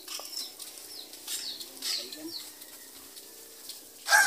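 Small birds chirping, short high falling notes repeated every second or so. Just before the end a rooster starts to crow loudly.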